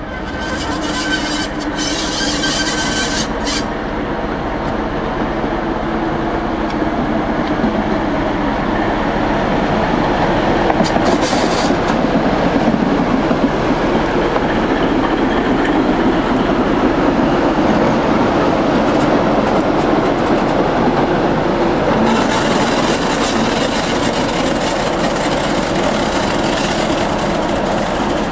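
Class 73 electro-diesel locomotive running on its diesel engine as it moves past: a steady engine drone mixed with rolling wheel noise, a little louder around the middle. A high squeal sounds over it in the first few seconds.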